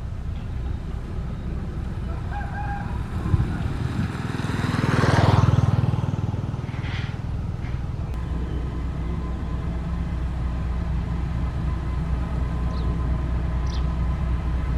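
Diesel engine of heavy road-construction machinery running steadily with a low hum, swelling louder and fading again about five seconds in.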